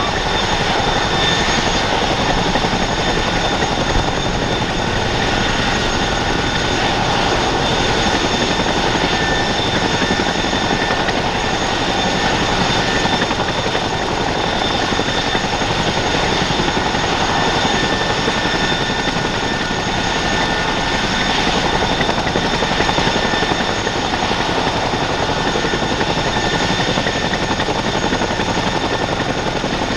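Boeing CH-47F Chinook running on the ground with its tandem rotors turning: steady, loud rotor noise with a constant high whine from its twin T55 turboshaft engines.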